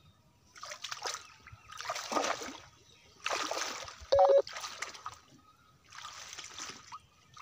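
Footsteps swishing through wet waterside vegetation, about one step every second and a quarter. There is a short, loud pitched note about four seconds in.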